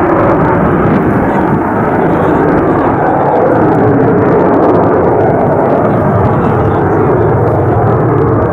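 German Air Force Eurofighter Typhoon's two EJ200 turbofan engines making a loud, steady jet roar as it climbs steeply away after takeoff.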